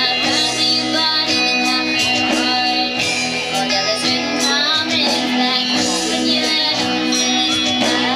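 Live band playing a pop song: a woman singing over twelve-string acoustic guitar, electric lead guitar, bass and drums.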